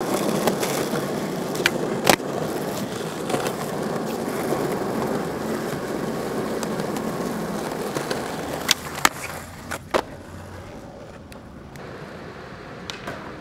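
Skateboard wheels rolling on asphalt, with sharp clacks of the board hitting the ground, the loudest about two seconds in and a cluster around nine to ten seconds in. The rolling stops about ten seconds in, leaving quieter background.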